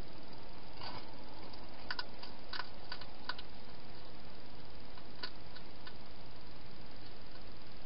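Hedgehog eating from a bowl inside a plastic feeding box: a scatter of short, sharp crunching clicks over a steady hiss.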